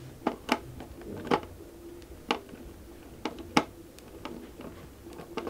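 Irregular light clicks and taps of a small screwdriver working at a screw in a hard plastic display base, with the plastic box being handled, over a faint steady hum.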